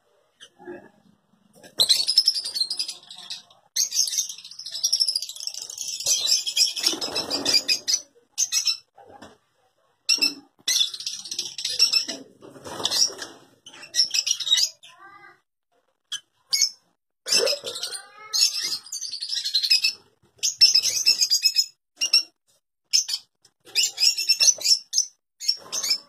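Caged lovebirds (Fischer's and rosy-faced) chattering in shrill, high-pitched bursts, with a few flutters of wings among them.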